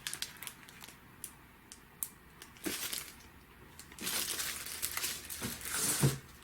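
Plastic-bagged comic books rustling and crinkling as they are flipped through in a box: a few light ticks at first, then steadier rustling from about four seconds in, with a soft thump near the end.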